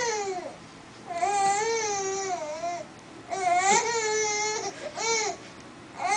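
A baby's high-pitched vocal squeals, two of them long and drawn out with wavering pitch, between shorter ones.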